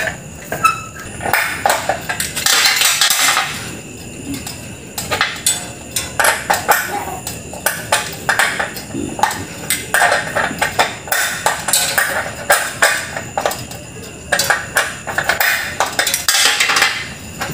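Metal hand tools clinking, knocking and scraping against the compressor's steel base and mounting bolts in a quick, irregular run of sharp clicks, as the compressor is worked loose from its mounting.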